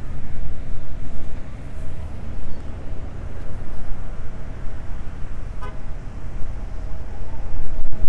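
Outdoor ambience dominated by wind buffeting the microphone: a heavy low rumble that rises and falls in gusts. Under it runs a faint steady tone, and there is one brief short tone about six seconds in.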